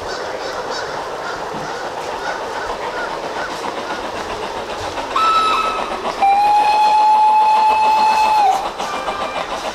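G scale model train running on its track with a steady rattling noise, and its sound system sounding a short toot about five seconds in, then a louder, longer blast of a couple of seconds a moment later.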